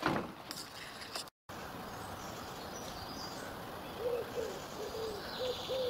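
Outdoor background hiss with a few faint knocks in the first second; from about four seconds in, a pigeon cooing, a run of short low hooting notes.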